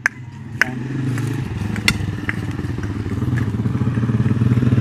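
A digging bar jabbing into hard, stony soil, three sharp knocks in the first two seconds. Under it a low engine rumble starts and grows steadily louder, becoming the loudest sound toward the end.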